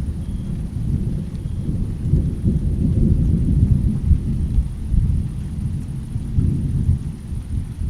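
Rolling thunder rumbling, swelling about two seconds in and easing off near the end.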